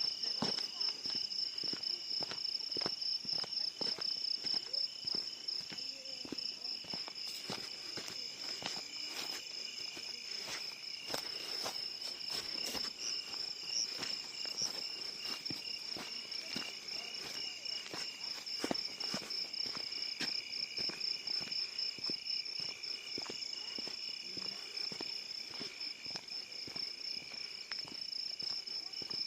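Crickets chirping in a steady, fast-pulsing high trill, with scattered faint clicks throughout; no thunder.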